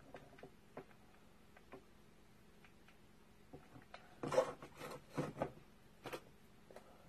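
Light clicks and small taps from handling a hot glue gun against picture frames on a tabletop. There are faint scattered ticks, then a cluster of louder knocks about four to five and a half seconds in and another tap about a second later.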